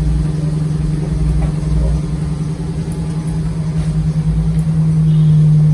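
Car engine idling: a steady hum with a low, slightly uneven throb, growing a little louder about five seconds in.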